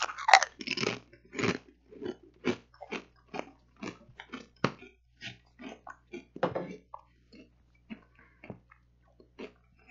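A person biting into and chewing a Pringles Scorchin' Wavy potato chip close to a headset microphone. A quick run of crisp crunches comes first, then chewing crunches about twice a second that grow fainter near the end.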